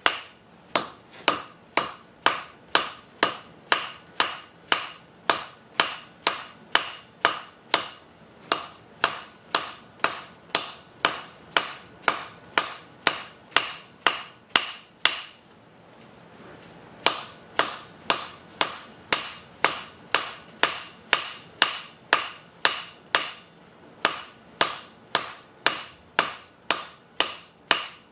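Hand hammer forging red-hot steel on a mild steel block anvil built from three 2-inch plates welded together, its face a bit work hardened: steady blows about two a second, each with a short ring. The hammering stops for about two seconds just past the middle, then resumes.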